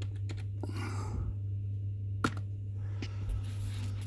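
Steady low electrical hum with a few sharp computer keyboard clicks, the loudest about two seconds in, and a soft breath about a second in.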